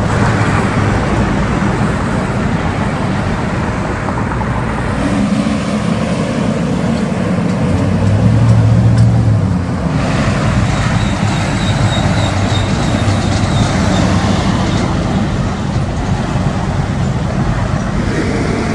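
Highway traffic: heavy trucks and cars passing with engine drone and tyre noise. A big truck engine swells loudest about eight to nine seconds in, and the sound shifts abruptly about ten seconds in and again near the end.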